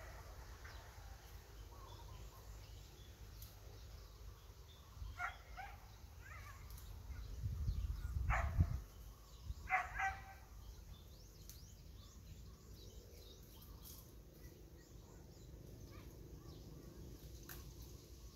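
Several short animal calls over outdoor ambience with faint bird chirps, and a low rumble around the middle.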